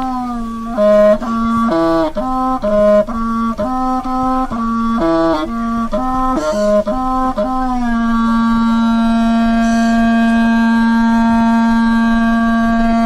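Music: a wind instrument playing a tune of short stepped notes, then holding one long steady note from about eight seconds in.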